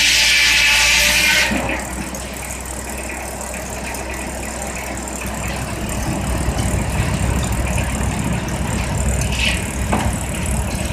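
Sawmill's circular saw cutting with a loud, high whine that stops abruptly about a second and a half in. The mill's machinery then runs on with a steady low rumble, with a brief squeal near the end.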